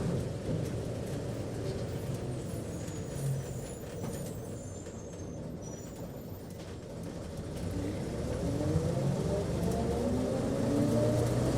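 Bus engine heard from inside the cabin: its note dies away as the bus slows, stays low and quiet for a few seconds, then climbs steadily in pitch and loudness from about seven or eight seconds in as the bus pulls away again.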